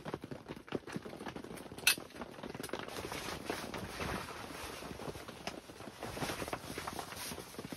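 Camping gear being handled and packed up: irregular rustling and small clatters, with one sharp click about two seconds in.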